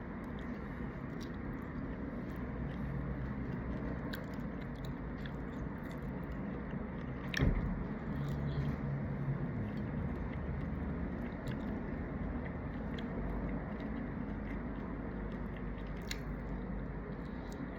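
A person biting and chewing shrimp, with scattered small wet clicks and one sharper click about seven seconds in, over a steady low background rumble.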